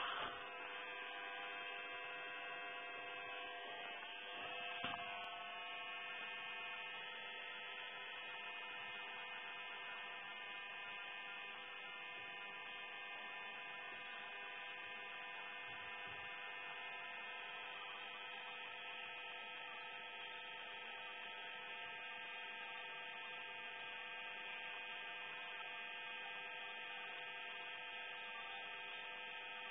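Steady electrical hum of several pitched tones from the oxyhydrogen (HHO) torch rig, with one sharp click about five seconds in.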